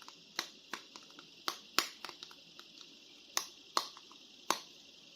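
Hard plastic action figures clicking and tapping as they are handled: about a dozen sharp clicks at uneven intervals.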